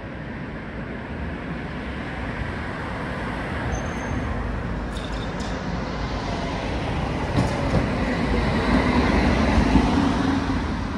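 Tram running on its rails, getting steadily louder as it approaches, with a low rumble and a hum that builds near the end.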